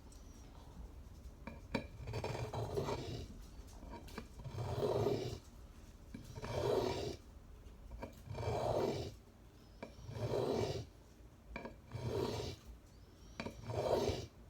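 Small Swiss Army knife blade scraped across a medium diamond sharpening stone in slow, even strokes, about seven of them roughly two seconds apart.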